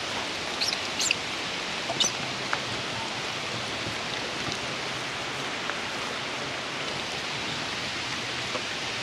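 Steady hiss of rain falling on the forest, with a few short high squeaks in the first two seconds.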